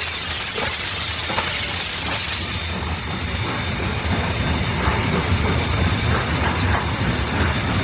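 Steam locomotive running: a low rumble with regular mechanical knocks and clanking. A loud hiss of steam drops away about two and a half seconds in, and the rumble grows after that.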